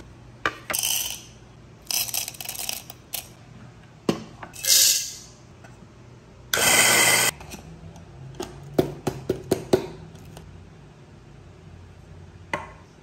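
Coffee beans rattling into a stainless steel dosing cup, then a short burst of an electric coffee grinder running. Light metal clinks and taps of the cup and portafilter follow.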